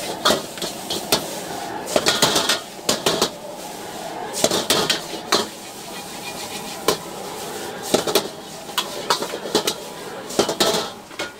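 Long-handled metal ladle clanking and scraping against a wok as fried noodles are stirred and tossed, in irregular bursts of sharp metallic knocks over a steady hiss.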